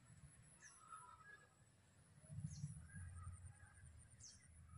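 Near silence of a rural pond bank: a bird gives three short, high, falling chirps about two seconds apart, over a low rumble that swells about halfway through.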